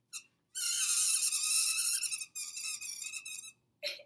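Metal fork pressed against a block of dry ice, screeching loudly with a wavering, high multi-pitched squeal that starts about half a second in and stops after about three seconds. The ice is super-cooling the metal tines, and the carbon dioxide subliming where the tines touch it makes the fork vibrate.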